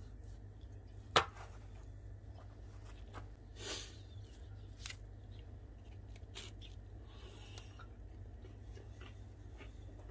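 Kitchen knife cutting through a baked pastry crust on paper over a table: a sharp knock about a second in, a short crunching scrape near four seconds, then a few light taps as the knife and pieces are handled and set down.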